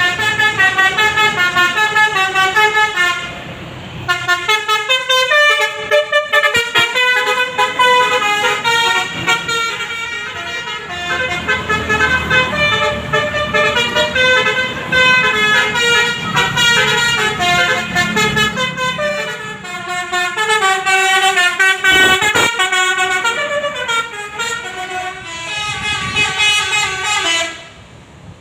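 Bus's basuri musical horn (telolet) playing quick melodies of stepping notes, with brief breaks about three seconds in and near the end. A low engine rumble runs under it in the middle.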